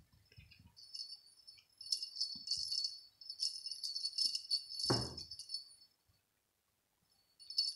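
Small bell on a fabric fish cat toy jingling in short runs as the cat paws and bites it, with a brief low thump about five seconds in. The jingling stops for a moment and starts again near the end.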